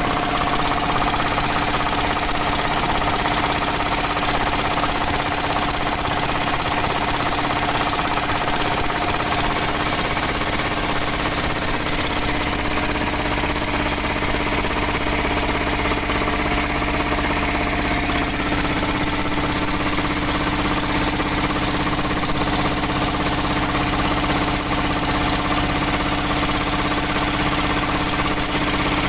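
A boat's engine running steadily at constant speed with a continuous chugging.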